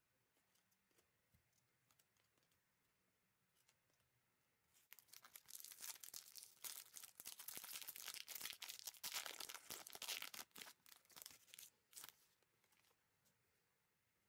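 Sealed trading-card pack wrapper being torn open and crinkled in the hands, a dense crackling tear lasting about seven seconds in the middle, with faint clicking before and after.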